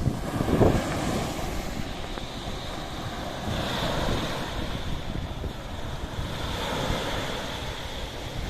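Sea waves washing in steadily, with wind rumbling on the microphone.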